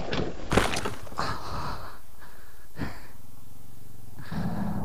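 Dirt bike and rider crashing into a muddy lane: a few knocks in the first second and a half, the loudest just over half a second in, and another about three seconds in. Then the rider's heavy, pained breathing and a groan near the end, with the bike's engine running low and steady underneath.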